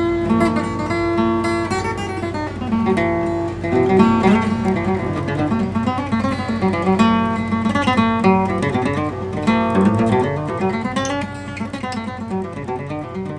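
Instrumental music led by acoustic guitar, picked and strummed, beginning to fade out near the end.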